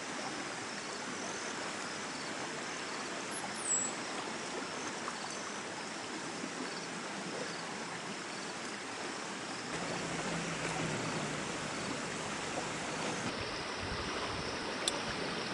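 Shallow mountain stream running over rocks, a steady rushing babble of water. A single brief high chirp about three seconds in.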